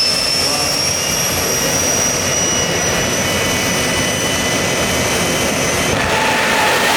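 Jet drag car's turbine engine running loud: a steady rushing roar under a high whine that slowly rises in pitch, the whine dropping away about six seconds in as a lower tone takes over.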